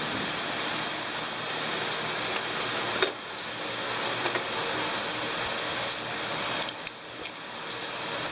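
Steady hissing noise, with one sharp click about three seconds in and a few softer knocks near the end.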